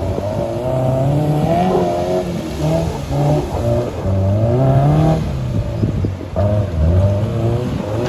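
A 4x4's engine revving hard under load over rough ground. Its pitch rises and falls again and again as the throttle is worked.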